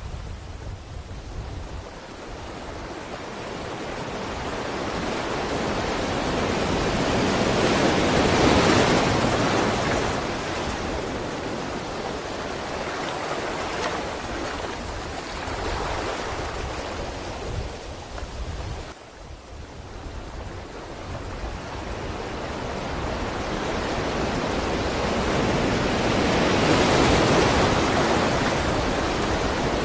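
Ocean surf: a steady rush of breaking waves that swells to a peak about a third of the way in, drops to a brief lull past the middle, then builds to a second peak near the end.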